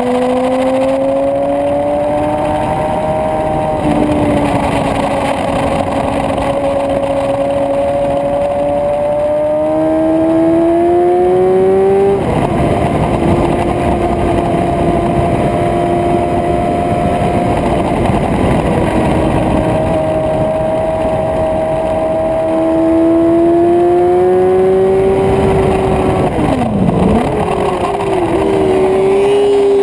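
Suzuki GSX-R750 inline-four engine at racing speed. The revs climb, drop sharply at gear changes about 4 and 12 seconds in, climb again, and dip briefly near the end when the throttle closes for a corner, all over steady wind rush.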